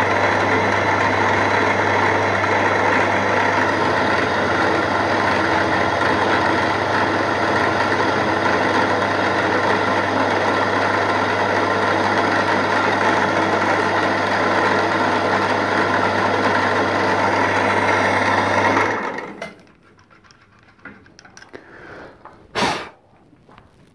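Milling machine running an end mill through a small metal block, the slide valve for a model steam engine: a steady motor hum under a continuous cutting noise. The machine stops about 19 seconds in, and a single sharp knock follows near the end.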